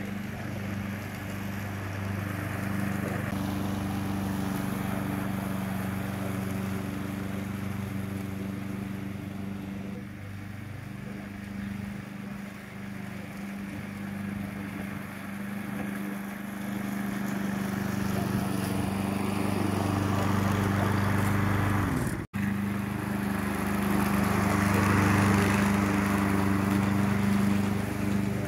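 Walk-behind lawn mower engine running steadily while cutting grass, with a brief break in the sound about three-quarters of the way through.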